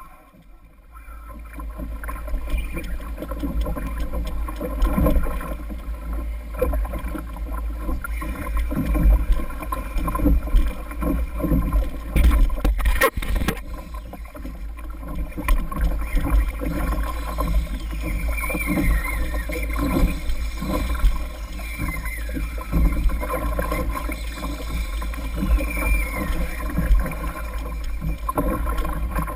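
Wind buffeting the microphone over water rushing and slapping against a fishing kayak's hull as a hooked tarpon pulls it through the chop, with irregular knocks and splashes throughout. It grows louder over the first couple of seconds.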